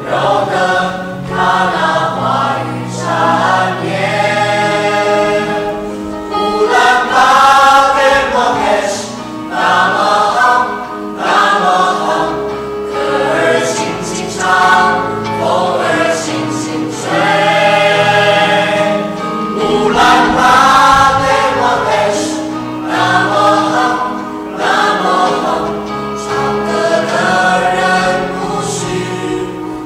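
A stage cast singing together as a choir in phrases of held notes, over steady low accompaniment notes that change in steps.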